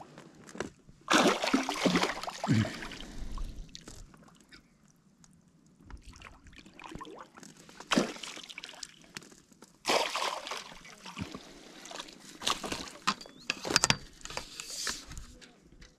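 Water sloshing and splashing in irregular bursts as a hooked pike thrashes at the surface while it is played and landed.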